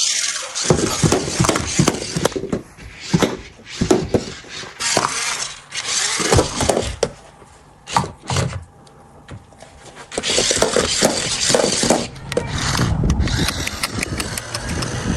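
Amphibious RC stunt car's small electric drive motors and plastic gearboxes whirring and rattling in repeated short bursts as it is driven, with a quieter pause a little past halfway.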